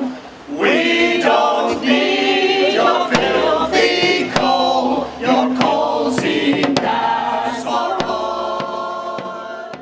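Women's a cappella choir singing in close harmony, ending on a long held chord that fades out at the end.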